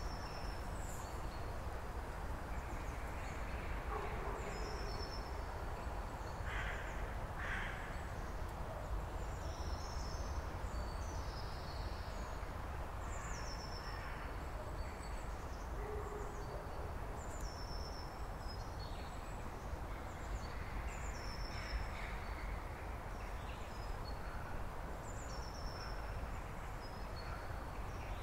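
Woodland birds in winter: small birds repeatedly give short, high, falling calls, and two harsher caws come about seven seconds in. Underneath runs a steady low rumble and hiss of background noise.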